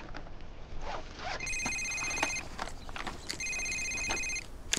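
Mobile phone ringing: an electronic trilling ring tone, heard twice, each ring about a second long with about a second between them.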